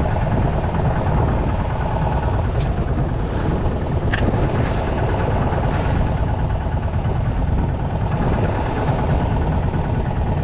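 Fishing boat's engine running steadily, with a sharp click about four seconds in.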